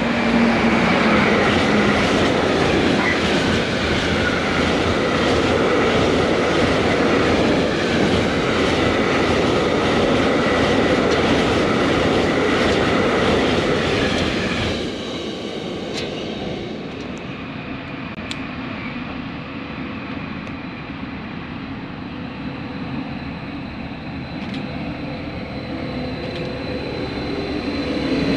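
A freight train of tank wagons, hauled by a blue class 248 locomotive, passes close by with a loud rumble and a steady clatter of wheels over the rail joints. About halfway through, the sound drops suddenly to a quieter steady rumble with a faint high whine.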